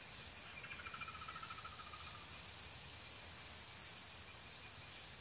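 Steady high-pitched chorus of chirping insects, with a faint falling trill about a second in.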